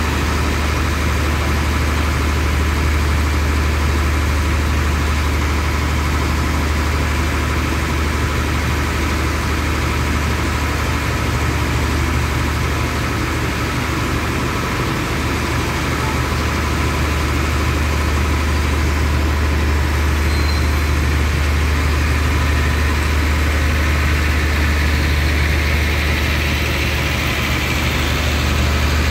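Diesel-powered passenger train idling at the platform with a steady, loud low hum. Near the end the train starts to pull out and a rising rolling rumble joins the hum.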